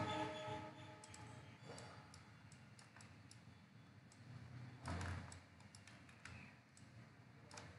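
Faint, scattered computer mouse clicks, irregular and sparse, with one brief louder puff of noise about five seconds in.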